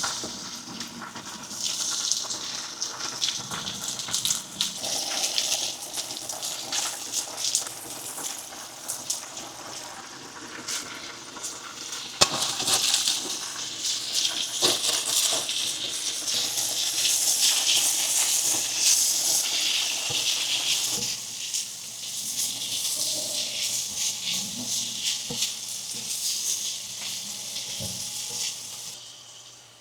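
Food sizzling and crackling as it fries in a pan, a steady hiss dotted with small pops, fading out near the end.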